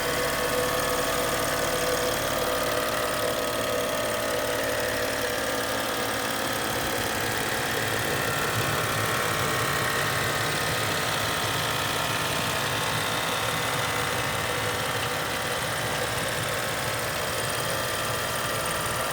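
Steady hum and buzz under the hood of a running 2013 BMW X5, heard over the engine idle while the A/C or heat is blowing; the source of the buzz is not yet found.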